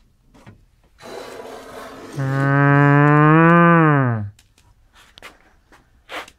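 A man's long, wordless "ooooh" of admiration, held steady for about two seconds and then sliding down in pitch as it fades. Just before it comes a rough scraping as the front panel of the Sony BVS-3200P video switcher mainframe is swung open, and a few light clicks follow.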